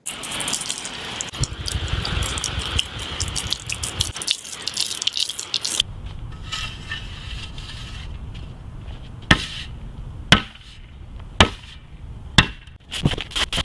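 Hose water spraying and spattering onto dirt for about six seconds, followed by a quieter stretch with four sharp knocks about a second apart.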